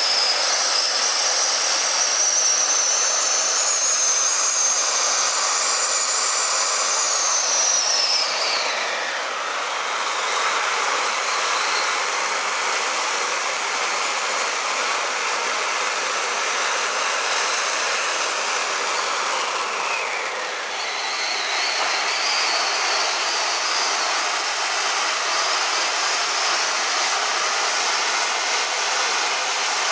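Silver-spark ground fountain fireworks burning with a steady loud hiss. A high whistling tone runs through the hiss and slides down in pitch about eight seconds in, and the hiss dips briefly twice, near eight and twenty seconds.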